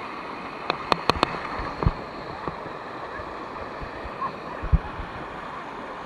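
Steady rush of river water spilling over small travertine cascades, with a few sharp clicks about a second in and a short low thump near five seconds.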